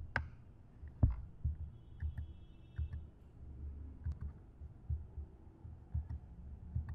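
Computer mouse clicking irregularly, each click carried as a dull low thud, about one or two a second, with a sharper click about a second in.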